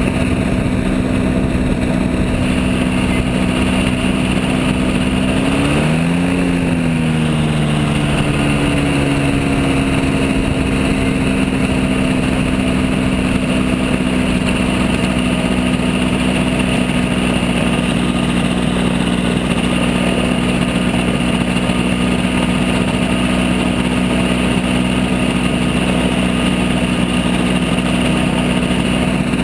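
Microlight trike's engine running steadily while it taxis and rolls along a runway. There is a brief rise and fall in pitch about six seconds in.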